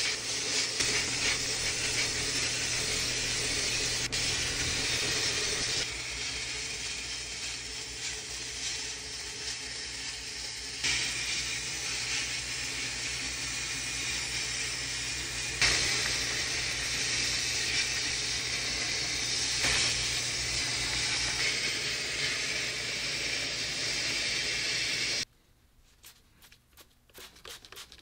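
Sandblasting in a blast cabinet: a steady loud hiss of compressed air and abrasive from the blast gun against a rusty sheet-metal frame, with a low hum underneath, changing abruptly a few times. About three seconds before the end it stops suddenly, leaving faint rubbing and small ticks of a cloth wiping the bare metal.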